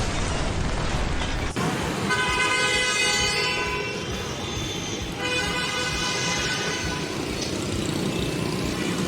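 A horn sounds twice, each blast held for about two seconds, over steady background noise.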